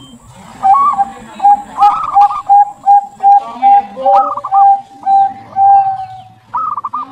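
Zebra dove (perkutut) cooing: a long run of short, even coo notes, about two to three a second, broken by a few warbling, trilled notes a little higher in pitch.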